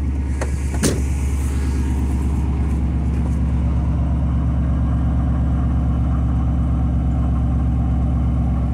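A 2002 Chevrolet Silverado 2500HD's 6.0 L gasoline V8 idling steadily, not yet misfiring. A couple of short knocks come in the first second.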